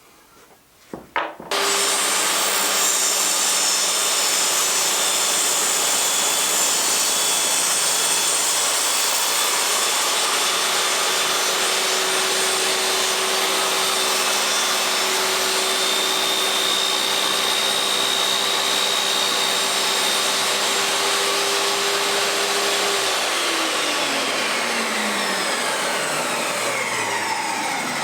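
DeWalt DW745 table saw switched on, its motor and blade running at a steady speed for about twenty seconds, then switched off, the pitch falling as the blade spins down.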